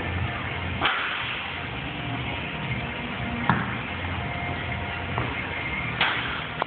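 Basketballs knocking against the hoop and the ball-return device: three sharp knocks, about a second in, midway and near the end, over background music.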